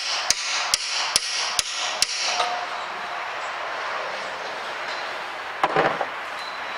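A hammer lightly tapping the top of a steel gear shaft held in a vise, five light taps about two a second, each with a short metallic ring. The taps seat parts of a Hobart A200 mixer's gearbox, driven by little more than the hammer's own weight. A brief clatter comes near the end.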